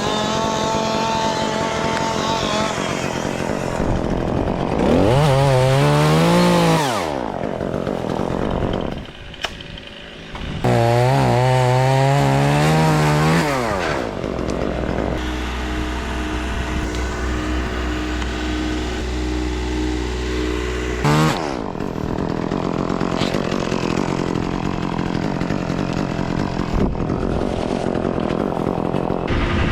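Two-stroke chainsaw bucking black walnut limbs into small pieces: the engine revs up to full speed through two cuts in the first half, dropping back between them, then runs at a lower steady speed with throttle changes through the rest.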